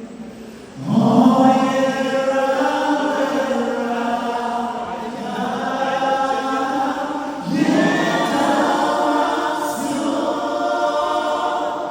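Several voices singing together in long, held phrases, like a small choir or group of backing vocalists; one phrase begins about a second in and a second one near the eight-second mark.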